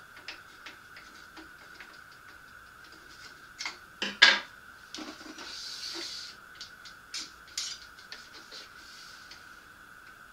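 Wire spokes and nipples clicking and clinking against the hub and a carbon fibre track rim as a bicycle wheel is laced by hand, with one louder knock about four seconds in and a short rattle just after.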